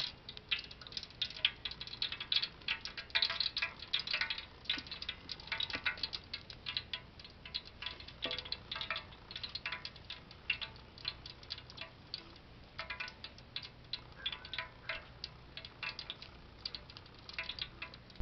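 Cooking oil spitting and crackling as it heats in an aluminium pot over a wood fire: a dense run of sharp, irregular pops and ticks, thickest in the first few seconds and sparser after.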